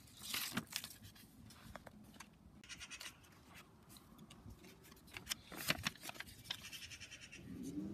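Quiet, irregular crackling and soft taps of a paper cut-out puppet being handled, its paper wing flapped by hand.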